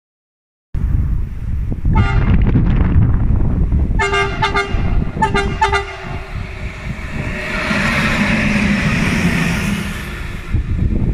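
Two electric locomotives running coupled together sound their horn as they approach: a brief toot about two seconds in, then two longer blasts about four and five seconds in. They then pass with a swelling rush and rumble of wheels on rail, over a low rumble of wind on the microphone.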